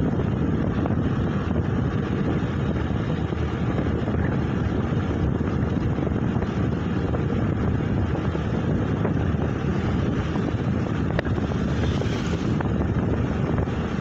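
Wind buffeting the microphone of a moving vehicle: a steady low rumble with no break, and a brief hiss about three-quarters of the way through.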